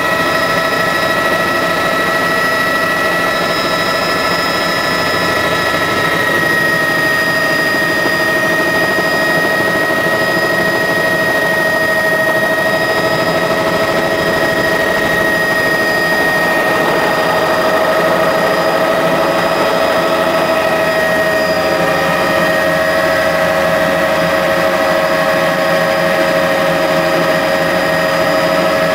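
Helicopter turbine whine and rotor noise heard inside the cabin during a low approach to land; the steady whine drops slightly in pitch about three quarters of the way through.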